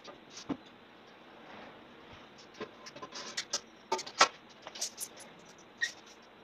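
A stick stirring plaster in a plastic bucket: irregular light scrapes, clicks and knocks, with a sharper knock about four seconds in.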